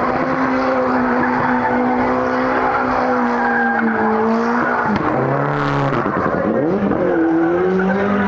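Anti-lag-equipped Mitsubishi Lancer Evo's turbocharged four-cylinder engine held at high revs while the car spins doughnuts, with tyres squealing. The revs dip sharply about five seconds in and climb back again.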